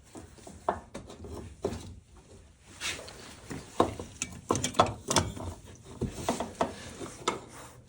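Irregular clicks, knocks and scraping as a new oil filter is handled and fitted up under the engine.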